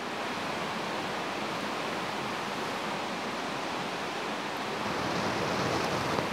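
Steady rushing of breath being blown onto a mesh smoke tray of smouldering wood dust to get it burning, swelling a little near the end.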